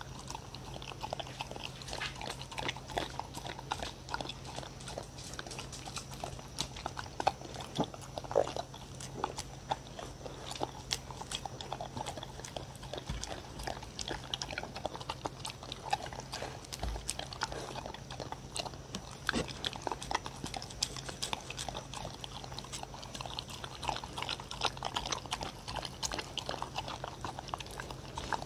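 Dogs licking and lapping blended banana and Korean melon out of wooden bowls: a steady, irregular run of wet licks and small clicks of tongue and teeth against the wood, as they scrape the bowls clean.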